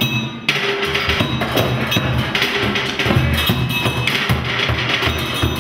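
Percussion music played on improvised instruments made from recycled materials: a continuous pattern of wood-block-like knocks and drum hits, with some sustained pitched notes underneath.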